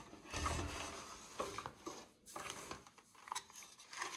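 Handling noises from a Bitmain Antminer L3+ miner as a hash board and its cables are worked in and out of the metal chassis. A stretch of rubbing and rustling comes first, followed by several light clicks and knocks.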